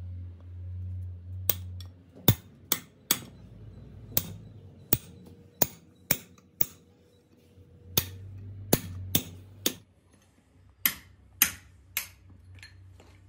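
Ball-peen hammer striking a steel drum brake shoe, partly through a drift punch held against it: a run of sharp metallic blows in uneven bursts of two to four.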